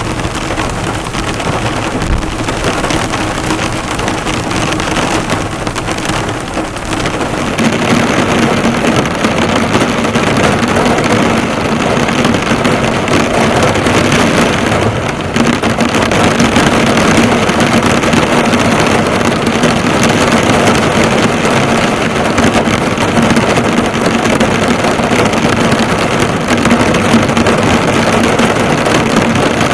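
Heavy rain drumming on a car's bonnet, the drops bouncing off the metal; the downpour grows heavier about eight seconds in, with a low steady hum underneath.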